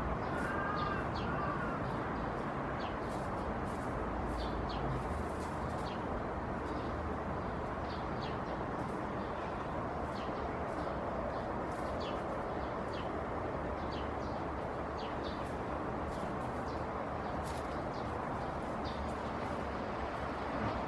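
Brown kiwi foraging in dry leaf litter: short crisp rustles and clicks, about one or two a second, as it steps through the leaves and probes them with its beak, over a steady outdoor background hiss. A bird calls briefly near the start.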